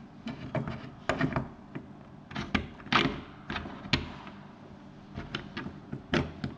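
Irregular light clicks and taps of chrome bath-mixer fittings being handled as the union nuts are threaded by hand onto the wall connectors.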